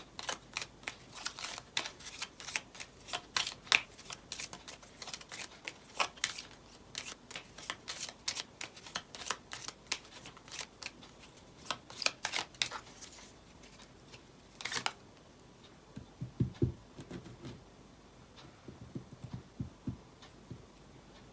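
A deck of divination cards being shuffled and handled by hand: a quick run of crisp card flicks and clicks that thins out after about thirteen seconds, followed by a few soft low thumps.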